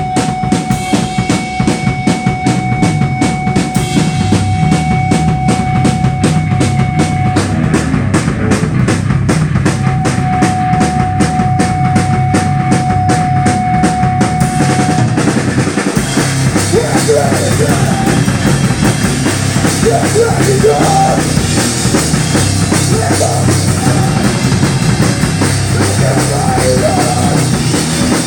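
Live rock band playing through a PA: drum kit, electric guitar and electric bass. In the first half a steady high note is held over a fast, even drum beat. About halfway through, the band moves into a fuller, busier section.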